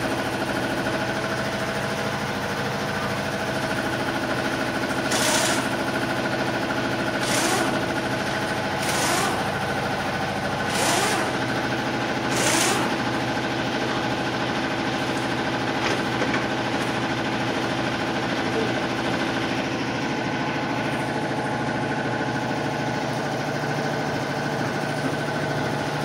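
A motor running steadily with a constant hum. About five seconds in come five short bursts of hiss, roughly every second and a half, ending around thirteen seconds in.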